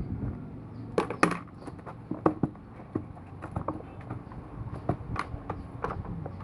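A box and its packaging being handled and opened by hand: an irregular run of sharp clicks and crackles, loudest in a pair about a second in.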